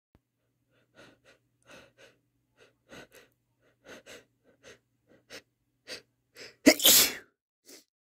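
A person's sneeze build-up: a run of short, sharp breaths, uneven in timing and slowly growing louder, then one loud sneeze about seven seconds in, followed by a quick breath.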